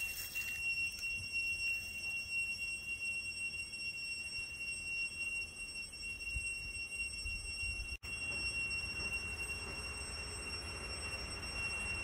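Cicadas singing in one steady, high-pitched shrill tone, over a low rumble.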